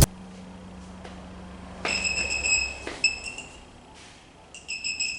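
Non-contact voltage tester beeping with a high electronic tone, the sign that it is picking up live voltage: one beep of about a second starting about two seconds in, a short one near three seconds, and another starting near the end. A low steady hum underlies the first two seconds.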